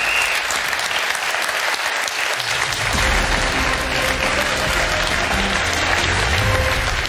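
Studio audience applauding. Show music with a bass line comes in about two and a half seconds in, under the applause.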